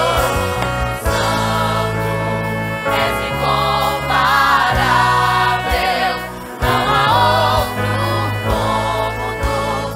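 Gospel music: a choir singing a hymn, accompanied by a band with saxophones and trumpets.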